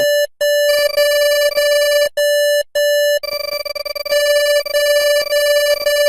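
French Polynesia's emergency alert tone: a single steady electronic beep, broken by short gaps near the start and about two and two-and-a-half seconds in, then pulsing rapidly for a moment before holding steady again.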